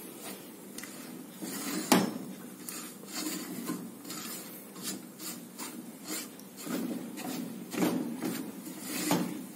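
Silicone spatula scraping and slapping a thick, sticky coconut and condensed-milk mixture around the bottom and sides of an aluminium pot in irregular strokes, with one sharper knock about two seconds in. The mixture is nearly at its setting point, where it starts pulling away from the pan.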